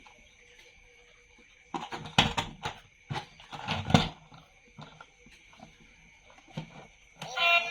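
Light knocks and clicks of objects being handled, a quick cluster of them about two seconds in, then a few scattered taps; music starts just before the end.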